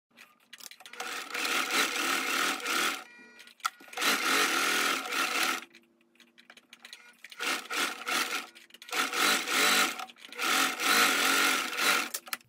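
Home electric sewing machine stitching a seam through linen in about five short runs, stopping and restarting between them, with a longer pause near the middle.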